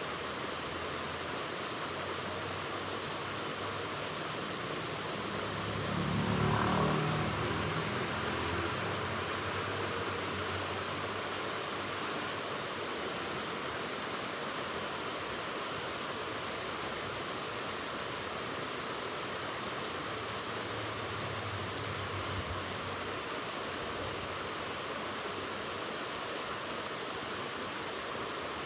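Steady rushing of a waterfall. About six seconds in, a low rumble swells for a couple of seconds, rising above the water, then fades; a fainter low rumble comes and goes around twenty seconds in.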